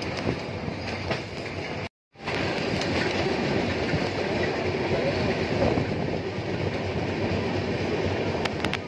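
Freight train of flat wagons loaded with rails rolling past, a steady rumble of wheels on track with a few sharp wheel clicks. The sound cuts out for a moment about two seconds in.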